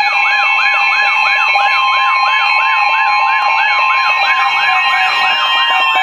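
Several NOAA weather radios sounding their alert alarms together for a Special Marine Warning. Steady held tones are layered over a warbling chirp that repeats about three times a second. Near the end some of the tones cut off and one glides downward.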